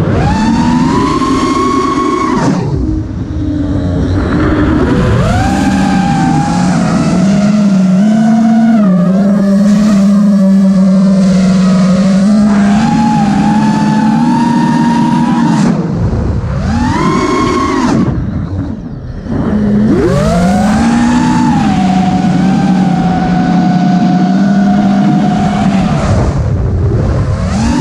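FPV racing quadcopter's brushless motors (Emax RS2205 Race Spec) whining, the pitch swooping up and down with throttle punches and holding steady while cruising, with a short dip in throttle about three seconds in and again near nineteen seconds.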